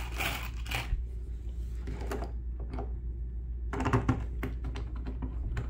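Small stainless steel screws and hardware being handled, with light scattered clicks and rattles. There are a few in the first second and a quicker cluster about four seconds in.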